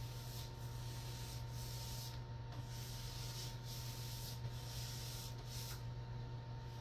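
Paint being applied to a wall, with repeated rubbing strokes of the applicator about one or two a second, over a steady low hum.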